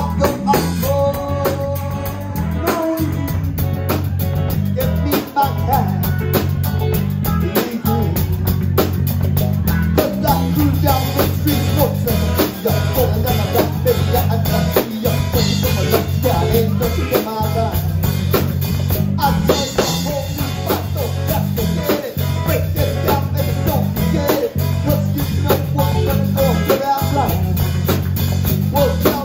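Live rock band playing at full volume: electric guitars, bass and a drum kit keeping a steady beat, with a man singing into a microphone over them through the PA.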